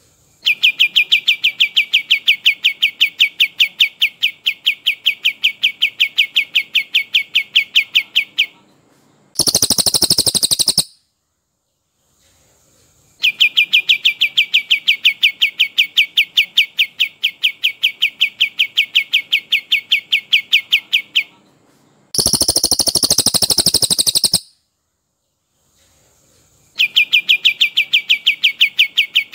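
Recorded songbird calls from a cililin and kapas tembak masteran: long, steady rolling trills of rapidly repeated identical notes, about six or seven a second, each lasting around eight seconds. The trills are broken twice by a short, higher, harsher burst of about two seconds.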